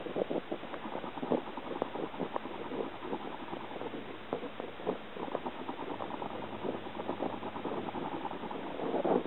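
Water bubbling and gurgling, a dense irregular patter of small pops and clicks.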